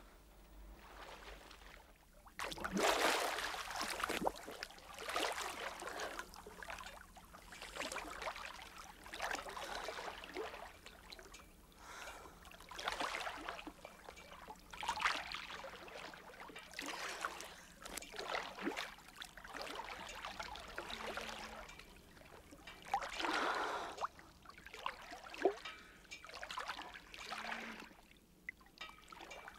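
Water splashing and lapping in repeated swells, roughly every one to two seconds.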